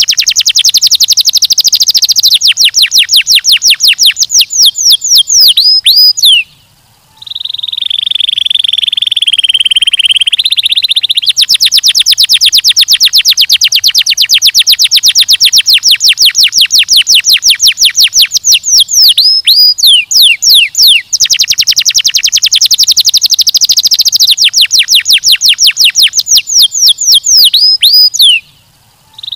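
Domestic canary singing long, rapid trills of high, repeated downward-sweeping notes. A buzzy held note of several seconds comes about a quarter of the way in, and short pauses come near it and again near the end.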